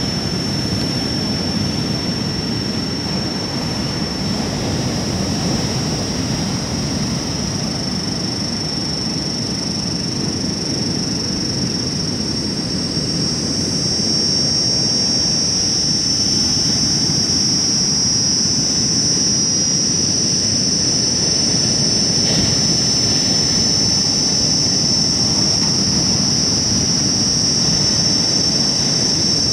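Steady rushing noise with a constant high-pitched whine over it; the whine grows louder about halfway through.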